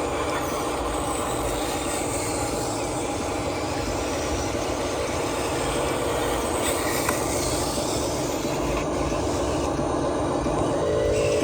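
Radio-controlled model trucks running: a steady mechanical whine and rattle from their electric motors and gearboxes, growing a little louder near the end.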